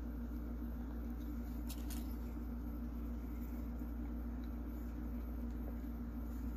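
Steady low background hum, with a couple of faint sharp clicks about two seconds in as small plastic arm pieces are pressed onto a vinyl figure.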